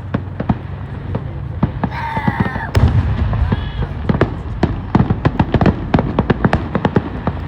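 Fireworks going off in quick succession: a dense string of sharp bangs and crackles, heaviest about three seconds in and again in the second half.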